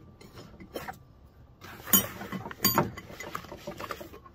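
Hand tools clinking and knocking together as a hand rummages in a tool belt pouch, with sharper clanks about two seconds in and again shortly after, over a low rustle.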